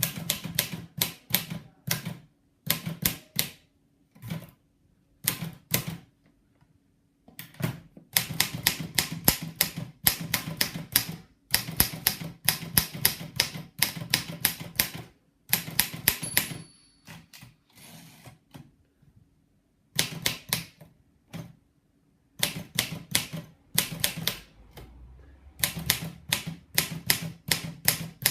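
Imperial Good Companion portable typewriter being typed on: quick runs of key strikes clacking in bursts with short pauses between, and a brief ring about halfway through.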